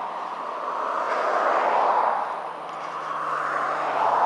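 Traffic on a busy city road: a steady rush of passing vehicles that swells and eases twice.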